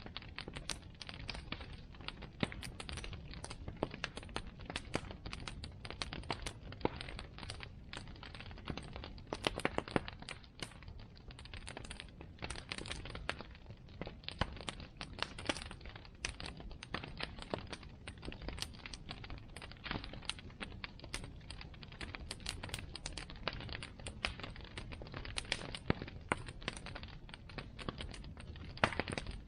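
Bonfire crackling: burning wood giving off frequent, irregular sharp pops and snaps over a low steady rumble.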